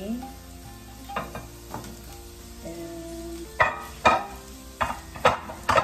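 Diced zucchini and carrots tipped from a glass dish into a skillet of frying onions, then stirred with a spatula over a light sizzle. In the second half the spatula knocks sharply against the pan about five times.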